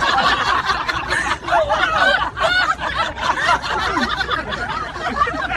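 People laughing and chuckling.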